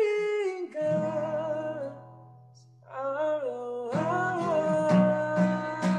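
A man singing in Filipino, accompanying himself on acoustic guitar. A held note and a ringing chord are followed by a short pause just after the midpoint. Singing then resumes, and from about four seconds in he strums steadily under a long held note.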